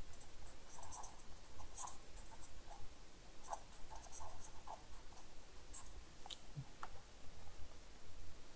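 Faint, scattered light taps and scratches of a pen or stylus on a writing surface, over a low steady hum.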